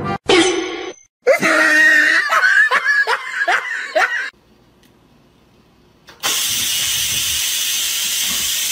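A person laughing in short repeated bursts, then after a brief pause a steady hiss.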